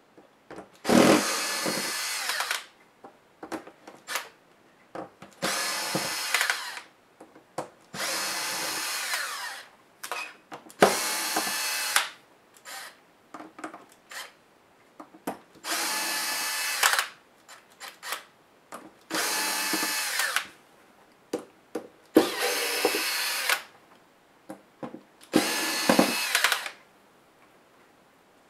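Cordless power screwdriver running in eight short runs of about a second each, backing out the small screws that hold a laptop's LCD panel and hinges. Light clicks of handling come between the runs.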